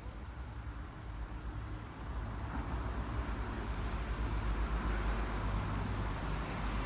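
Road traffic noise: a steady low rumble with the rush of a vehicle growing louder from about halfway through.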